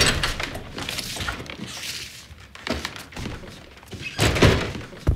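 Knocks and thumps of a glass-paned wooden door being handled and shut, the loudest thump about four seconds in.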